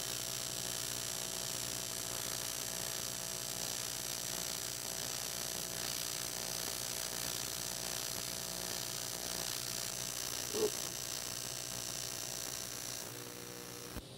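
AC TIG welding arc on aluminum: a steady hiss over a low hum while the filler rod is melted into a lap joint, with one brief pop about ten and a half seconds in. The arc stops near the end.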